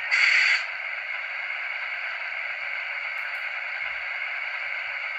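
Sound decoder of a model Köf shunting locomotive playing its diesel engine idling through the model's tiny loudspeaker: a thin, steady hissing drone with no bass. A short, louder hiss comes in the first half second.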